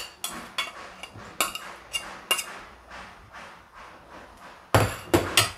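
A metal serving spoon clinking and scraping against ceramic bowl and plate as food is spooned out: scattered light clinks, then a quick run of three louder knocks near the end.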